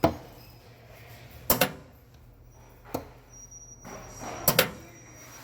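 Four sharp knocks about a second and a half apart, the last one doubled, over a low steady hum.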